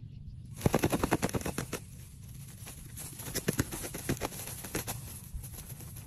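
A rapid run of sharp crackles, about ten a second for just over a second, then scattered single crackles: dry grass crackling as an eagle struggles with the prey under it.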